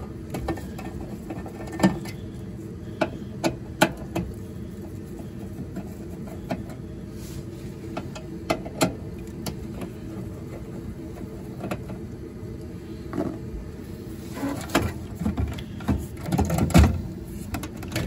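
Scattered clicks and light metallic clinks of a nut driver working on the bolts of a gas furnace's manifold, over a steady low hum. The clicks come thicker near the end.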